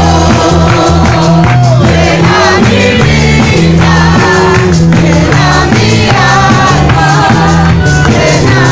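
Christian worship song: a group of voices singing together over a band with steady bass notes and percussion.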